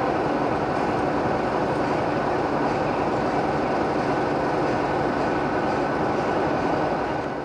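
Class 33 diesel-electric locomotive standing and idling, its Sulzer diesel engine running as a steady dense noise with a thin steady whine over it, fading out at the very end.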